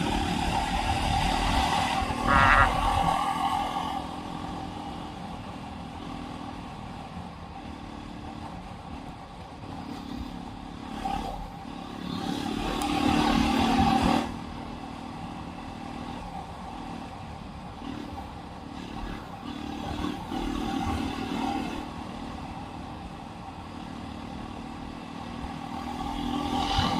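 Jawa 42 motorcycle's single-cylinder engine and exhaust running at speed, rising and falling with the throttle over a low wind rumble. It is loudest as it pulls hard about halfway through, then drops off sharply, and builds again near the end.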